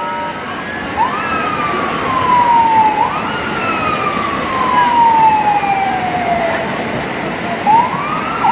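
Siren wailing: three times its tone rises quickly and then falls slowly over two to three seconds, over a loud steady rushing noise.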